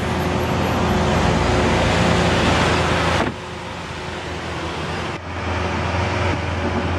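Lamborghini Aventador LP700-4's 6.5-litre V12 idling steadily, its level dropping suddenly about three seconds in.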